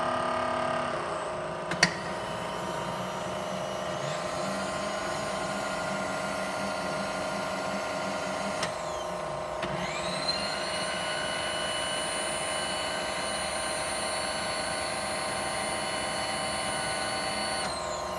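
Sharp LMV-50 knee mill running with a steady motor hum and a sharp click about two seconds in. A whine from the X-axis table power feed winds up about ten seconds in, holds a steady pitch, and winds down shortly before the end.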